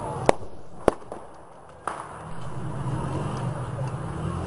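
Explosions going off at a festival: two loud, sharp cracks about half a second apart, then a weaker pop about a second later, over a steady street rumble.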